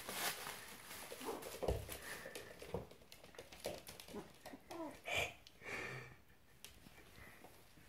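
Small white puppies playing with a plastic bin bag on a wooden floor: scattered patter and clicks of paws, the bag rustling, and a few brief puppy vocal sounds about four to five seconds in.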